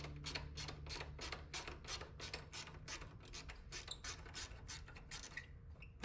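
A hand tool worked in quick, even strokes, about five a second, thinning out near the end, during work on a car's 12 V battery.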